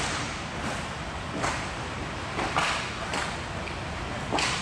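Roller hockey play in a large hall: about five sharp clacks of sticks hitting the puck and the floor, roughly one a second, over a steady background noise.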